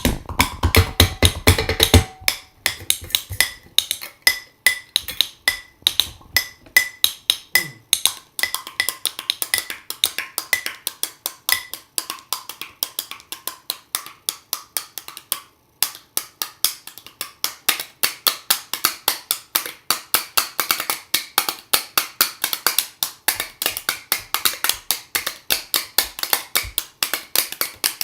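Samba percussion played on hand percussion and improvised kitchen instruments: a fast, steady rhythm of sharp taps and clicks. Low drum hits drop out about two seconds in, a brief break comes about halfway, and a denser, brighter clicking pattern follows.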